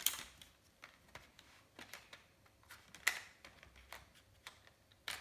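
Light, irregular clicks and taps of colored pencils knocking against each other and their metal tin as they are picked through, the sharpest about three seconds in.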